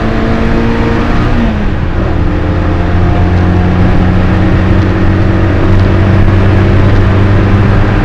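MG Midget race car's four-cylinder engine running hard, heard from inside the cabin. The engine note drops about a second and a half in, then holds steady.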